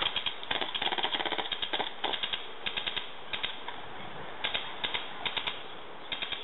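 Small-arms fire in a firefight: quick bursts of automatic fire mixed with single rifle shots, coming in irregular clusters and slowly fading.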